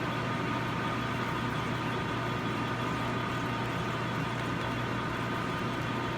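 Metal lathe running steadily at about 220 RPM, a constant motor and spindle hum with a steady higher whine, no change in pitch.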